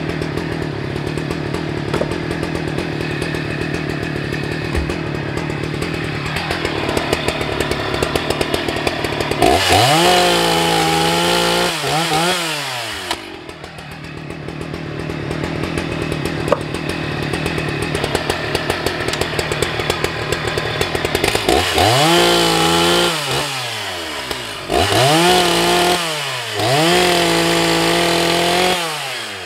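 Husqvarna 181 SE chainsaw, a large two-stroke with a 20-inch bar and chain, running steadily, then opened up to full throttle three times: once about a third of the way in and twice near the end. In each cut the engine pitch wavers and dips under load as the chain bites into the eucalyptus, then falls back as the throttle is released.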